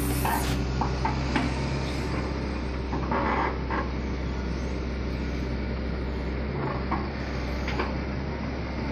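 Excavator diesel engine running steadily with a low rumble, with a few short knocks over it.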